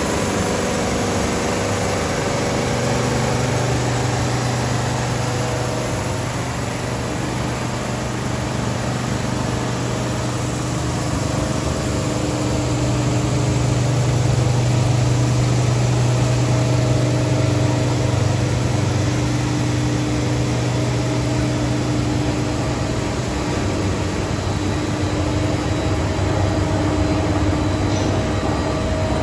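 Plastic film recycling and pelletizing line running: a steady mechanical hum of motors and blowers with a strong low drone, unchanging apart from small swells in loudness.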